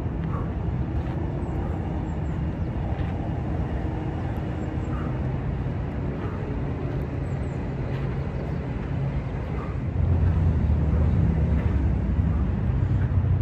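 Steady low rumble of city traffic, growing louder about ten seconds in.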